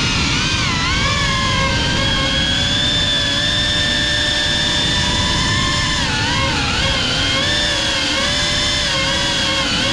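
GEPRC Cinelog 35 cinewhoop FPV drone's brushless motors and propellers whining in flight, heard from the onboard GoPro, with rushing prop wash underneath. The whine's pitch rises and falls with the throttle, dipping briefly about half a second in and again around six to seven seconds.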